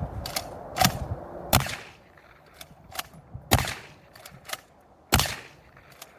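Dickinson XXPR 12-gauge AR-style shotgun firing four loud shots at uneven intervals over about four and a half seconds, with smaller clicks between them.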